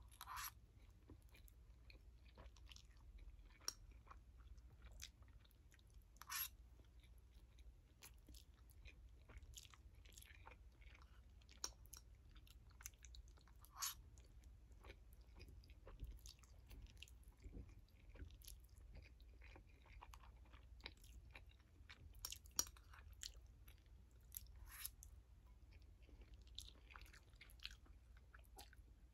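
Faint mouth sounds of a person eating noodles: chewing with scattered soft, wet clicks and smacks, a few of them a little louder.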